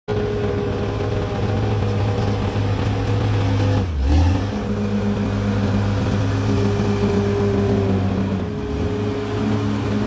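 Caterpillar D6R XL bulldozer's diesel engine running steadily as the dozer pushes soil with its blade. The sound breaks briefly about four seconds in, with a short low thump.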